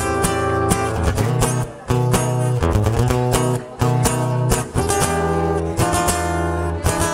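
Acoustic guitar strummed as a song's instrumental introduction, with a steady stroke pattern and the chord changing every second or two.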